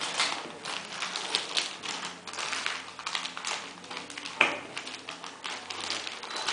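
Bamboo sushi rolling mat wrapped in plastic film, clicking and rustling under the hands as a sushi roll is pressed and rolled: a quick, irregular run of light taps, with one sharper knock about four and a half seconds in.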